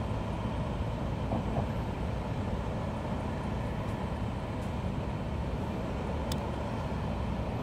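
Steady low outdoor rumble with no speech, with a few faint clicks.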